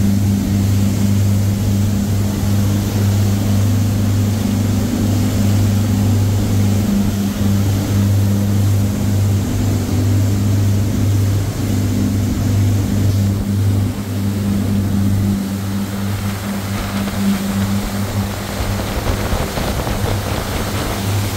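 Motor cruiser's Volvo Penta inboard engine droning steadily at cruising speed, over a steady rushing hiss of wind and water.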